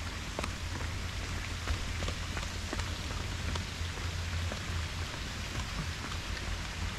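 Light rain falling steadily, with many small irregular drop ticks over an even hiss and a low rumble.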